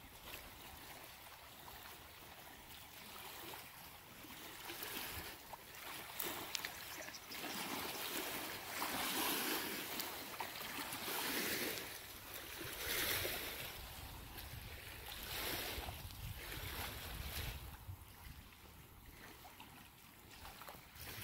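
Small wind-driven waves lapping against a muddy lake bank, washing in several soft swells that rise and fade through the middle.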